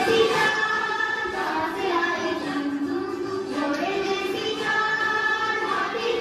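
A song playing for the dance: a sung melody in long, held notes over music.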